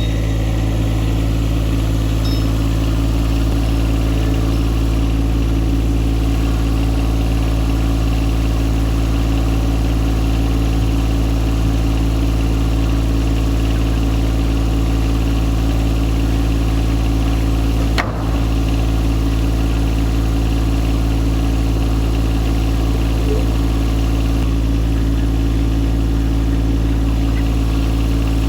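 An engine idling steadily with an even, unchanging hum, broken once by a sharp click about two-thirds of the way through.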